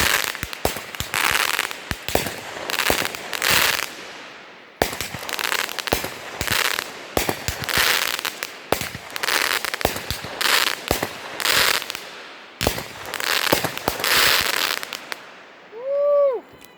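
Consumer multi-shot firework going off: a steady series of sharp bangs, each followed by a burst of crackling, about one a second, stopping shortly before the end.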